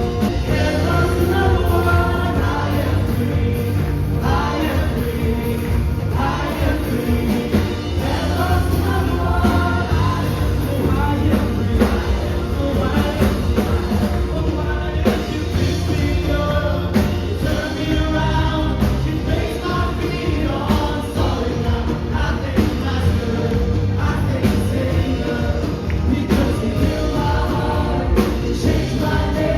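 A church worship band playing a gospel praise song, with voices singing together over a steady band accompaniment.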